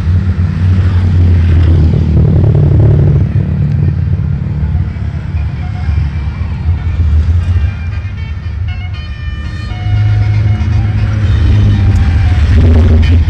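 A bus engine running with a loud, deep drone, and from about five seconds in a 'telolet basuri' multi-tone musical horn plays a stepping tune of short notes over it.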